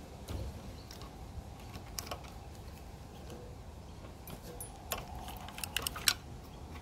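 Scattered metallic clicks and clinks of hand tools and metal parts being handled while a small generator is taken apart, with a quick run of sharp clinks about five to six seconds in.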